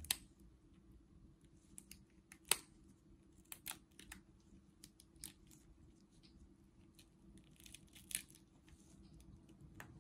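Scattered faint cracks and crackles of a crayfish's exoskeleton being pried and peeled away from the body by gloved hands. The sharpest crack comes about two and a half seconds in.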